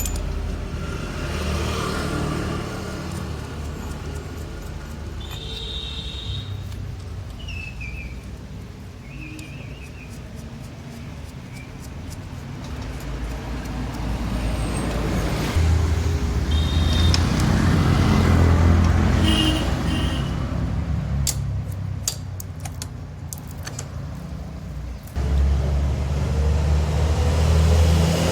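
Motor vehicle engines running nearby, a steady low hum that swells louder twice in the second half, with a few short high toots and a run of sharp metallic clicks.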